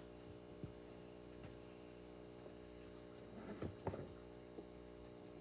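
Faint steady electrical hum with a few light clicks, and a brief cluster of soft knocks and rustling about two-thirds of the way through as a cardboard sheet is lifted off a clear plastic bin.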